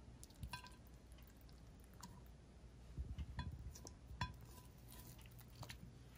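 Faint scattered clicks and soft taps of fingers handling rice paper and filling against a ceramic plate, a little busier about three to four seconds in.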